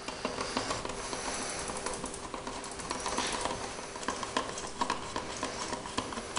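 Screwdriver backing screws out of a Hayward pool vacuum's plastic housing: a steady, dense scratchy rasp of many fine ticks.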